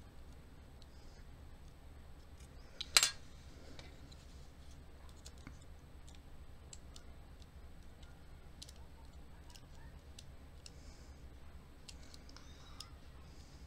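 Small metal clicks and ticks from handling the brass cylinder of an American Lock 1100 series padlock with tweezers and a thin rod during reassembly, with one sharp, loud click about three seconds in.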